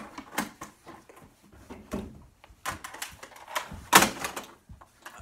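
Irregular knocks, thumps and rustling of a person moving about and handling things in a small room, with the loudest thump about four seconds in.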